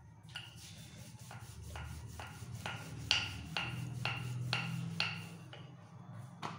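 Wooden rolling pin rolling paratha dough back and forth on a floured granite counter, with a sharp tap about twice a second. A steady low hum runs underneath.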